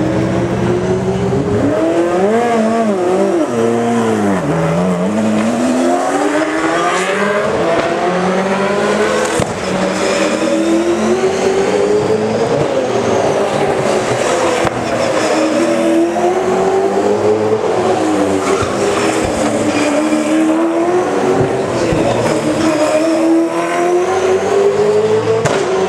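V8 Supercars race cars' V8 engines running hard through a corner, one car after another, so the sound never lets up. The engine pitch keeps falling steeply and climbing again as they lift and shift, with several engines overlapping at times.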